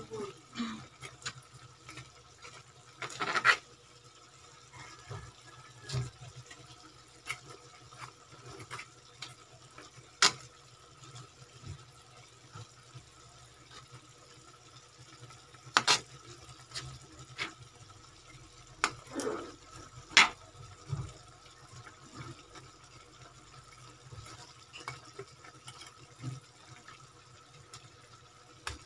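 Metal spoon stirring chicken pieces in sauce in a metal wok: scattered clinks, knocks and scrapes of the spoon against the pan, with a faint steady hum underneath.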